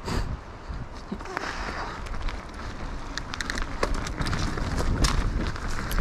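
Mountain bike on Michelin DH34 downhill tyres rolling fast down a dry dirt trail: tyre noise on loose dirt and leaves with frequent sharp clicks and rattles from the bike. A low rumble grows louder near the end as the speed rises.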